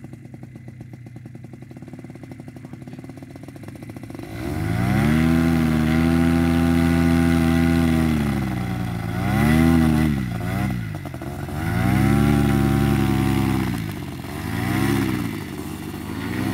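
Paramotor engine running quietly at low throttle, then opened up to full power about four seconds in for the takeoff. Its pitch then dips and climbs again three times as the throttle is eased and reopened.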